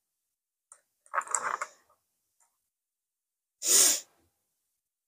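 A person's breaths close to the microphone: a short, choppy breath about a second in and a longer exhale just before four seconds in, with dead silence between them.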